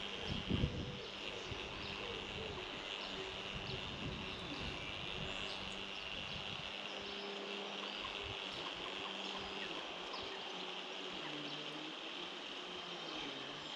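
Outdoor ambience with a steady high insect hiss and a wavering buzz of a flying insect. A few low wind thumps on the microphone come about half a second in.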